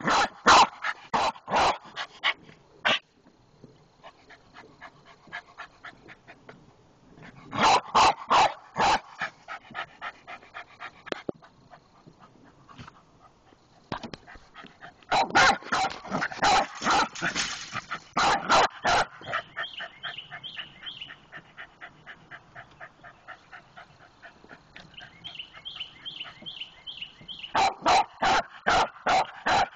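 A dog barking in four rapid bursts of sharp barks, several a second, with quieter gaps between holding a high, wavering whine. The dog is barking at its own reflection in a mirror, taking it for another dog.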